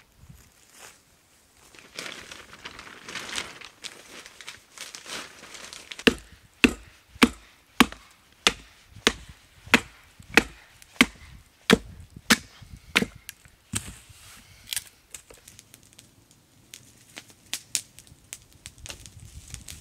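Firewood being split by batoning: a wooden baton strikes the upright piece of wood about a dozen times in an even run of sharp knocks, a little under two a second. A few scattered knocks follow, and there is a stretch of rustling before the run.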